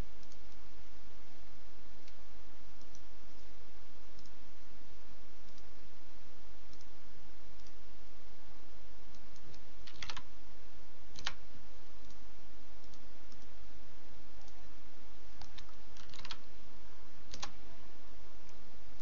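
Scattered sharp clicks of computer input, a couple about halfway through and a few more near the end, over a faint steady hiss and low hum.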